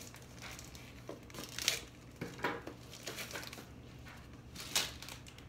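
Plastic mailer bag crinkling and rustling as it is cut and pulled open with scissors, in a string of short crackles, the sharpest about a second and a half in and near the end.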